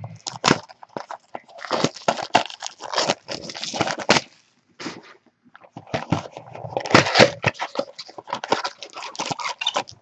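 Packaging of a 2014 Topps Finest Football mini box being torn open and handled: two stretches of dense crackling and crinkling, the first about two seconds in, the second and longer from about six seconds in.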